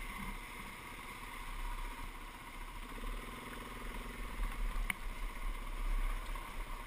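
Dirt bike engine running at low revs while the bike rolls slowly over a rocky, wet creek bed, with a sharp click about five seconds in.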